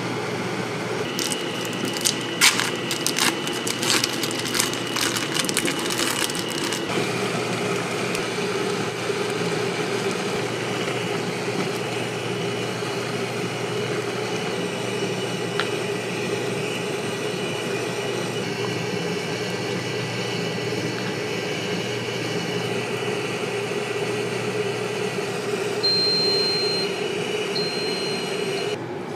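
Automatic ramen cooker boiling instant ramen in a paper bowl: a steady bubbling boil over a constant machine hum. A quick run of clicks in the first several seconds, and two short high beeps near the end.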